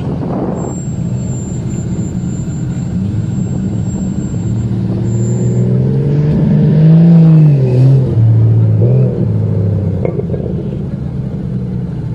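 Off-road 4x4 engine running, revving up so that its pitch and loudness climb to a peak a little past the middle, then dropping back in a few steps as the revs fall.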